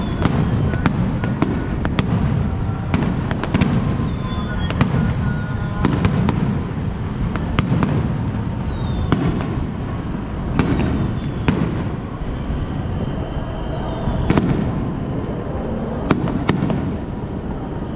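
Aerial fireworks bursting in a rapid series of sharp bangs and crackles over a constant low rumble, with several whistles that fall in pitch.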